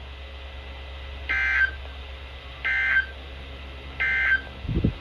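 NOAA Weather Radio end-of-message data signal: three short, evenly spaced bursts of warbling digital tones about a second and a half apart, marking the end of the weekly test broadcast. A low thump comes near the end.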